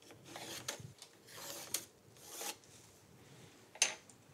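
Pencil scratching along a straight edge across pine strips, scribing a line in three or four short strokes, then a single sharp knock near the end.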